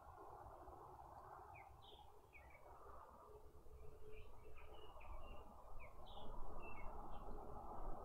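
Outdoor night ambience: scattered short, high chirps, some sliding in pitch, over a steady hiss, with a low rumble that grows louder about halfway through.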